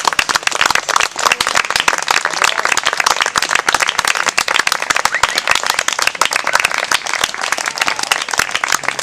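A small audience applauding, many hands clapping densely and steadily at the end of a song.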